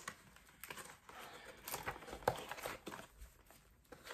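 Faint, scattered rustles and light taps of small plastic packets and packaging being handled.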